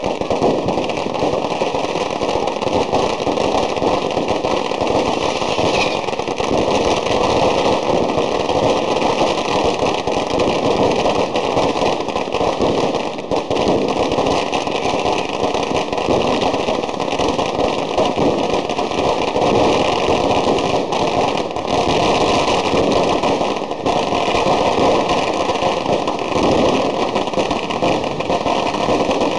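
A dense, continuous barrage of firecrackers and fireworks going off all around, countless bangs and crackles merging into one unbroken rattle.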